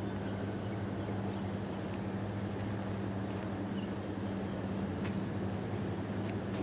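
A steady low engine hum from an engine running out of sight, unchanging in level, with a few faint ticks and one short high chirp.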